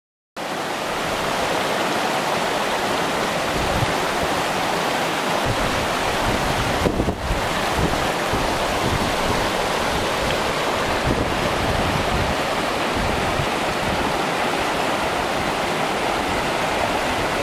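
Stream water rushing over rocks, a steady rush that starts abruptly about half a second in. Irregular low rumbles of wind on the microphone run under it.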